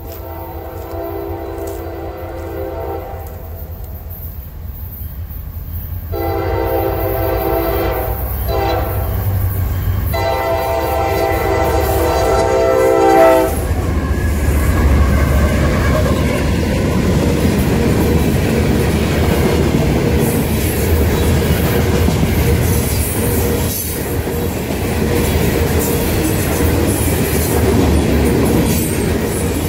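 Freight train diesel locomotive horn sounding the long-long-short-long grade-crossing warning as the train approaches. The lead locomotives then pass close by with a loud engine rumble, followed by the steady rattle and clickety-clack of loaded covered hopper cars rolling over the rails.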